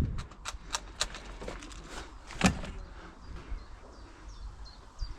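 Scattered airsoft gun shots, sharp clicks coming irregularly through the first half, the loudest about two and a half seconds in. Faint bird chirps follow in the quieter later part.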